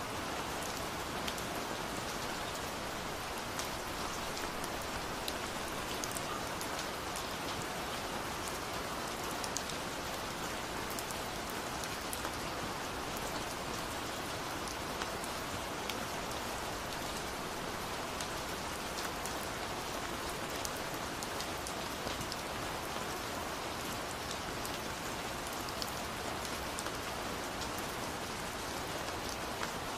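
Steady rain falling, an even hiss with many small drop ticks scattered through it.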